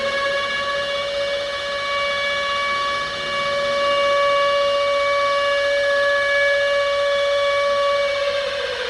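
Outdoor warning siren finishing its wind-up and holding one steady wailing tone, then winding down with falling pitch near the end.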